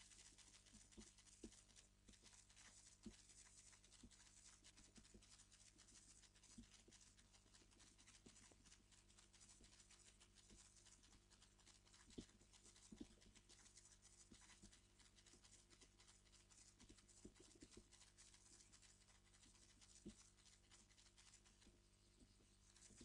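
Faint, irregular computer keyboard keystrokes, single clicks and short runs, over near-silent room tone.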